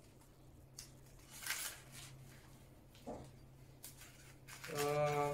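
Faint handling sounds: a small plastic bag of airsoft BBs rustling and being set down into a foam packaging tray, a few soft separate rustles and a light click. A short voiced sound from the man comes near the end.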